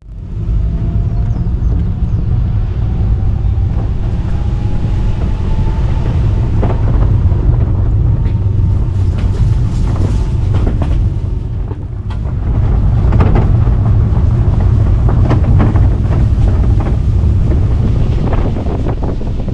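Wind buffeting the microphone outdoors, a steady low rumble, with scattered small clicks and crackles over it.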